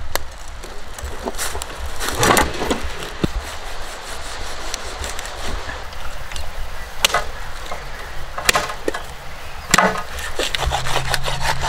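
Knife cutting and chopping into a big sailfish, starting at the head: irregular knocks and scraping.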